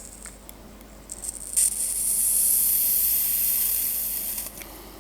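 A steady high-pitched hiss, starting sharply about a second and a half in, lasting about three seconds and fading away.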